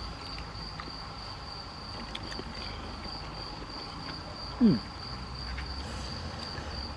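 A steady, high-pitched insect song runs without a break, typical of a cricket singing. About four and a half seconds in, a single short, low sound falls in pitch and stands out above it.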